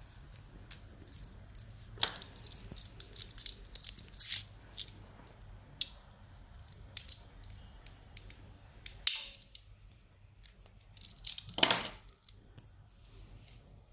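Handling noise from a coiled black cable and a small plastic tool: scattered light clicks and rustles, with a sharp click about two-thirds of the way through and a louder rustling scrape shortly after.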